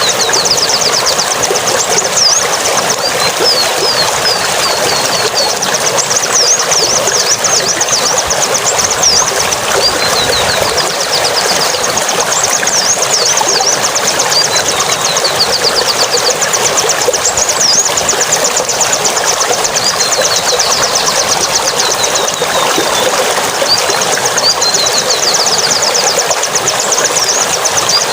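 Songbird singing in fast, high, repeated trills and chirps, almost without a break, over a steady rushing noise.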